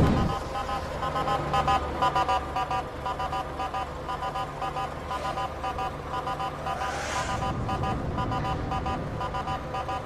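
Basuri telolet multi-tone horn on a tour bus playing its quick musical tune over and over, several notes a second, over the low running of the engine. Passing traffic swells up briefly about five and seven seconds in.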